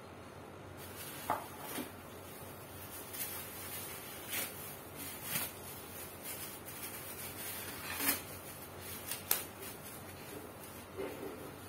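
Plastic packaging crinkling and fan parts being handled, with scattered short rustles and light knocks.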